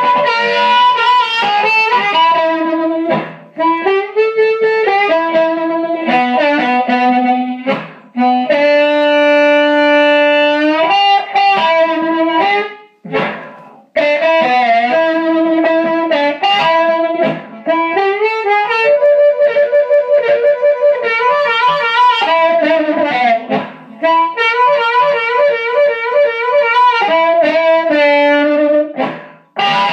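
Blues harmonica amplified through a small brown Shure MC151 microphone and a small amp, playing phrases of held notes with bends and a pulsing, warbled note partway through, with short breaths between phrases.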